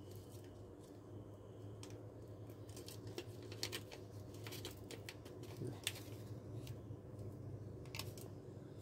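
A small pH calibration buffer powder sachet being handled and torn open: faint, irregular crinkles and ticks of the packet, over a steady low hum.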